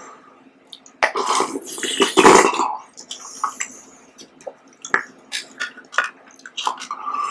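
A person slurps jelly and syrup loudly from a small plastic cup for about two seconds, starting a second in. A plastic spoon then clicks and scrapes against the cup, with small wet mouth sounds.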